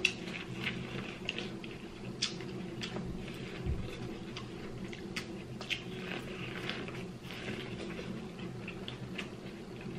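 Two people biting and chewing corn on the cob, their teeth stripping the kernels in many short, irregular crunches and clicks. A steady low hum runs beneath.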